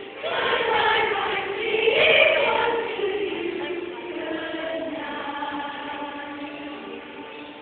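School choir singing together, many voices holding sustained notes. The choir comes in strongly just after the start, swells to its loudest about two seconds in, then gradually softens.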